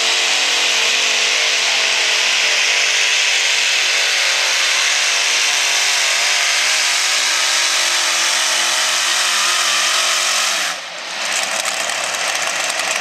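Multiple supercharged engines of a modified pulling tractor at full throttle under load, the pitch wavering as the tractor digs down the track. About eleven seconds in the throttle is chopped and the engines drop to a lower, quieter running sound as the pull ends.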